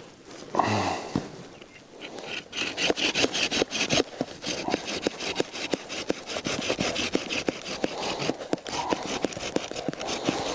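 Small hand saw cutting through a green alder branch in quick, even back-and-forth strokes, about four a second, starting about two and a half seconds in.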